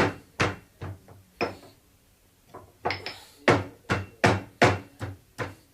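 Roasted ginger being pounded to crush out its juice: a run of sharp strikes, about two or three a second, with a pause of about a second partway through.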